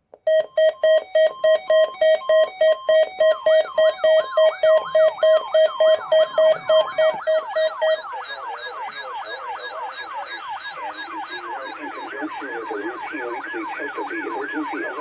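NOAA weather radio alert alarms sounding together, set off by the Required Weekly Test. A loud beep pulses about four times a second and stops about eight seconds in. About three seconds in, a fast siren-like falling whoop joins it and keeps repeating, and a lower warble comes in near the end.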